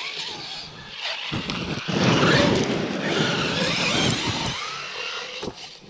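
Traxxas electric RC monster truck driving hard over dirt and grass: its motor whines up and down and its tyres scrabble. The sound builds about a second in, is loudest through the middle, and dies away near the end.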